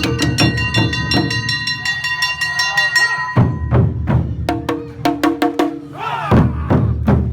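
Awa Odori festival music played live: rapid, ringing strikes of a small hand gong (kane) over drums in a driving rhythm. The playing breaks off briefly about three and a half seconds in, then starts up again.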